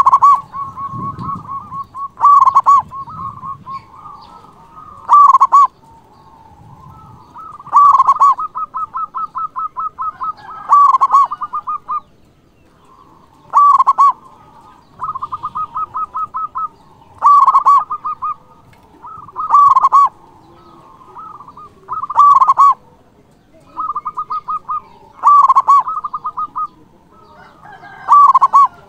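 Zebra dove (perkutut) singing its cooing song over and over: each phrase is a fast run of soft, even cooing notes ending in a louder accented coo. The phrases come about every two to three seconds.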